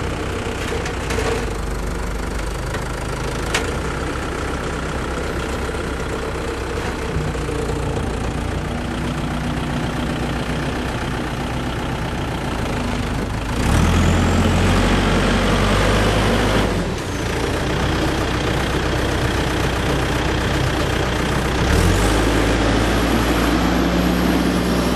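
Volvo BL60 backhoe loader's diesel engine running steadily at idle. About halfway through it becomes louder and heavier, dips for a moment, then rises again near the end.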